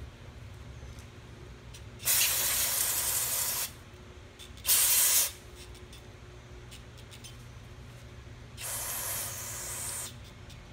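Aerosol cleaner hissing out through a straw onto the outside of a Briggs & Stratton lawn mower carburetor, in three bursts: a long one about two seconds in, a short one a couple of seconds later, and a softer one near the end.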